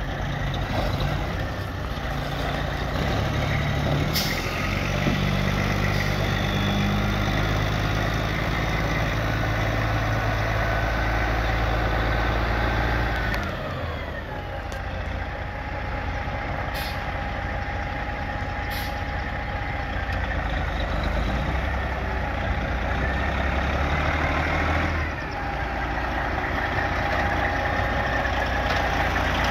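Diesel engine of a 1989 White (Autocar) tank truck running, with a whine that falls in pitch twice, about halfway through and near the end, as engine speed drops. A few short sharp clicks come through over the engine.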